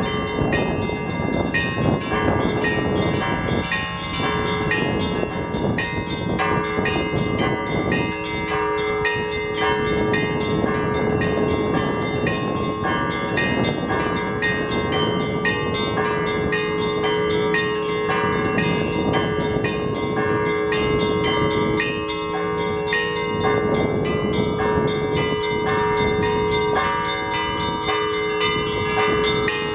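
Orthodox church bells rung by a bell-ringer: rapid strokes of the smaller bells over the steady, ringing tone of larger bells. A low rumble of wind gusts on the microphone swells and fades underneath.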